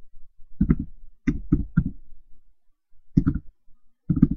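Computer keyboard keys clicking in short, irregular groups, about seven or eight strokes, as text is typed into a form field.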